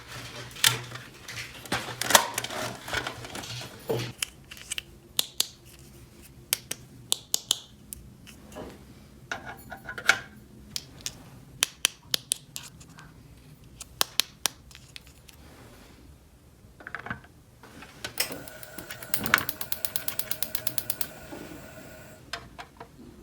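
Small plastic toy parts clicking and tapping as they are handled, with a fast, even ratcheting rattle near the end.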